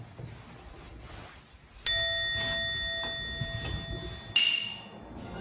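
A bright bell-like ding rings out about two seconds in and slowly fades. A shorter, noisier hit follows near the end.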